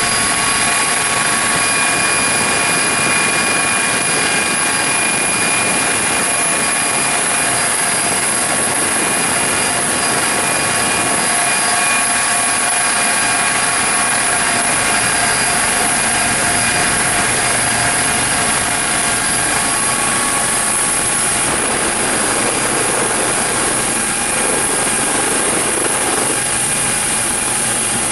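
Coast Guard HH-65 Dolphin helicopter running steadily: the twin turbine engines and rotors make a dense rushing noise with several steady whine tones. The whines weaken about three-quarters of the way through.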